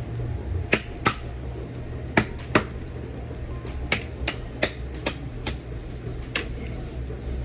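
Seafood shells being cracked and handled while eating: about eight sharp, irregular cracks and clicks over a steady low hum.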